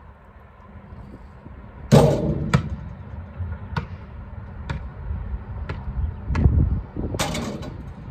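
Basketball bouncing on asphalt, dribbled in sharp knocks about once a second, with two louder bangs about two seconds in and near the end.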